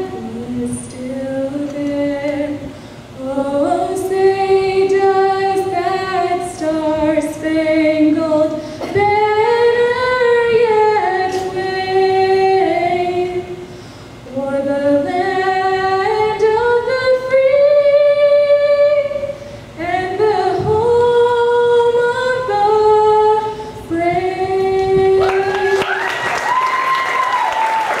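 Unaccompanied female singing: a slow melody of long, held notes with no instruments. Applause begins near the end.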